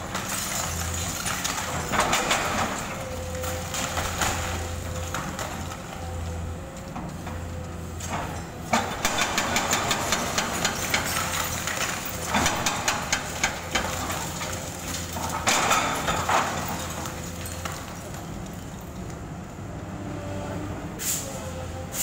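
Hydraulic excavator's diesel engine running steadily while its demolition attachment breaks up a concrete building. Bursts of rapid cracking and clattering from breaking concrete and falling debris come mostly in the middle stretch.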